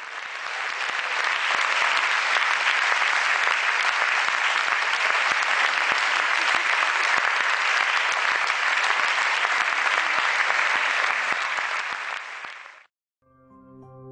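Crowd applauding steadily, then fading and cutting off about thirteen seconds in. Soft music with held notes starts just after.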